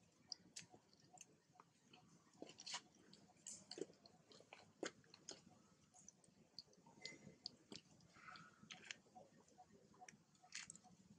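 Faint, irregular clicks and crunches of a macaque biting and chewing kernels off a corn cob.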